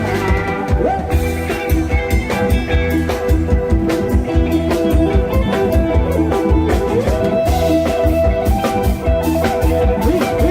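Thai parade-truck band (rot hae) playing a loud, upbeat song: drum kit keeping a steady beat under a bass line and a bending lead melody.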